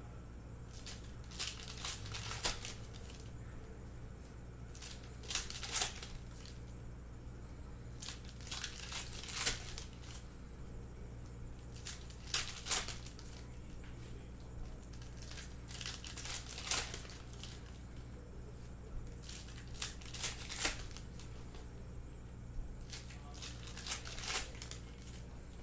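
Foil trading-card packs being torn open and crinkled one after another, a short burst of crinkling every few seconds, over a steady low hum.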